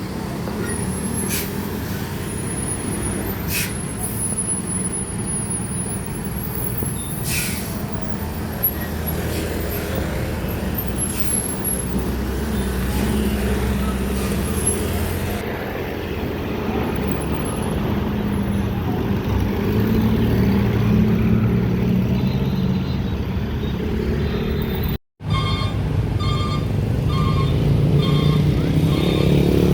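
Heavy diesel trucks running in slow traffic, with low steady engine drone and several short air-brake hisses early on. After a brief cut near the end, a rapid, evenly repeating electronic beeping joins the engine sound.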